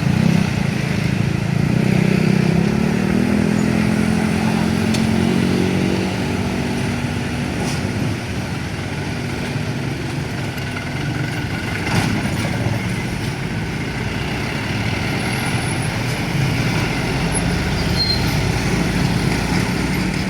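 A large truck's engine running, with its pitch lines strongest in the first six seconds, over steady road noise.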